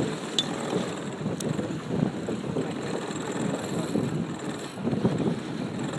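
Wind buffeting the microphone aboard a small sailboat under way, an uneven low rumble, with two sharp clicks about half a second and a second and a half in.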